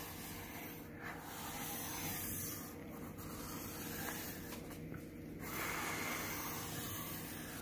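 Pencil scratching across paper while drawing straight lines, a soft steady hiss broken by short pauses between strokes.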